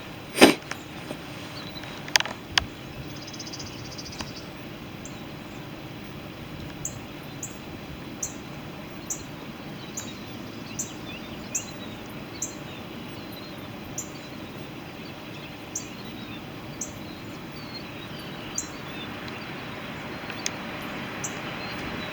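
Steady background hiss with a string of short, very high chirps repeating every half second to a second, and two sharp clicks near the start.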